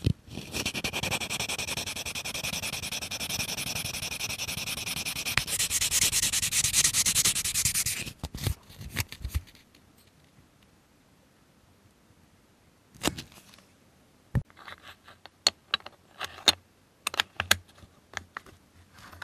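Sandpaper rubbed rapidly back and forth over a hard plastic model-kit part, sanding away a seam line, for about eight seconds, with a few last scrapes after it. After a pause, light clicks and taps of plastic parts being handled and fitted together.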